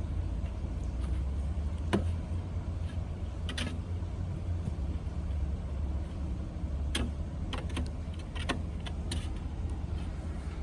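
Sharp, irregular knocks of a tamping bar packing soil around a freshly set fence post, about six strikes, over a steady low rumble.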